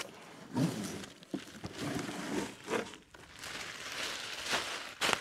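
Unboxing a chainsaw: cardboard box flaps and packing scraping and knocking, and plastic wrapping rustling and crinkling, in irregular bursts.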